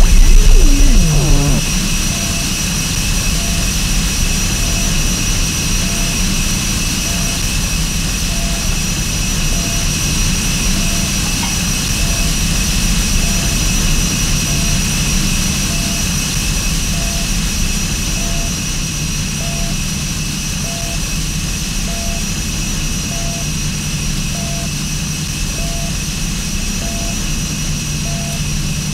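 Harsh noise music from effects pedals and electronics: a dense, steady wall of hiss over a low hum, with two high whistling tones held throughout and a short blip repeating a little more than once a second. A few falling pitch glides sound right at the start.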